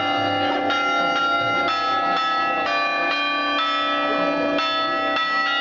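Church bells ringing in a continuous peal: strokes at different pitches follow one another about every half second to a second, their tones overlapping and ringing on.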